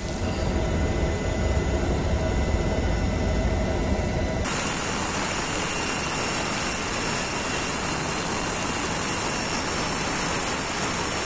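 Steady low rumble with a few steady tones, then about four seconds in an abrupt change to the loud, even rush of a firefighting helicopter's engine and rotor, heard from on board.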